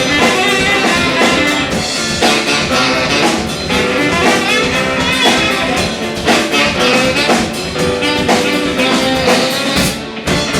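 Live band music with a drum kit and brass, playing loudly and steadily, with a brief drop in loudness near the end.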